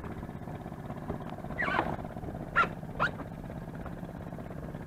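Small outboard motor idling steadily. About halfway through come three short calls that fall in pitch; the first is the longest.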